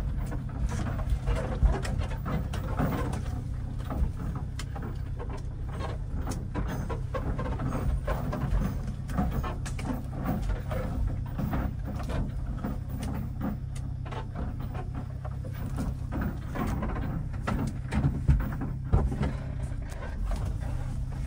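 A 1993 Subaru Sambar kei truck's 660 cc engine running steadily at low speed, heard from inside the cab, with frequent knocks and rattles as the truck bumps over a rough dirt trail.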